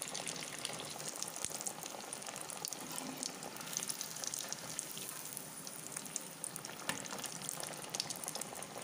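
Maggi-noodle-coated potato cutlets deep-frying in hot oil: a steady sizzle with many small crackles and pops throughout.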